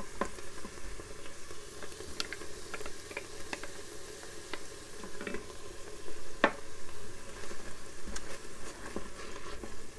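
Diced onion and celery sautéing in an Instant Pot's stainless inner pot on the sauté setting: a steady sizzle, with a wooden spoon stirring, scraping and knocking against the pot. The sharpest knock comes about six and a half seconds in.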